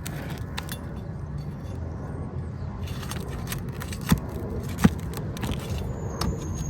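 Metal roofing tool working loose asphalt shingles and their nails: small scraping and clinking sounds, with two sharp knocks about four and five seconds in, over a steady low background noise.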